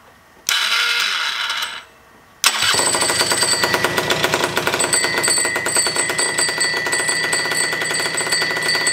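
Rebuilt Honda scooter two-stroke single-cylinder engine, high-compression: a short burst from the electric starter, then about two and a half seconds in it fires and keeps running with fast, even firing pulses and a steady high whine.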